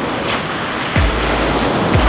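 Ocean surf washing onto a beach, a steady rushing noise. About a second in, background music comes in under it with a deep bass note that starts with a thud.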